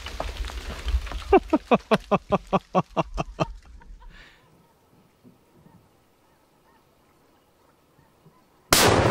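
A goose honks in a quick run of about a dozen falling calls, then after a few seconds of quiet a sudden, very loud blast hits near the end: a charge of Tannerite in a beaver dam detonating when shot with a rifle.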